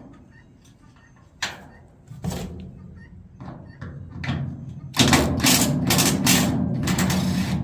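Metal knocks and clanks from work on the door latches of an industrial vacuum machine, with bolts being pulled and new steel latches fitted. A few separate knocks come first, then a louder, dense clatter over the last few seconds.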